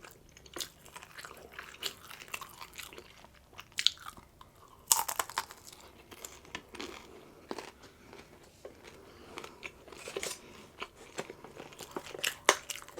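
Chewing and crunching of crisp rolled tacos, irregular crunches with the loudest about five seconds in and again near the end.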